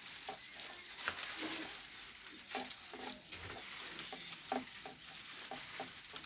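Polythene strip crinkling and rustling as it is wrapped tightly around a fresh mango graft, with small crackles now and then.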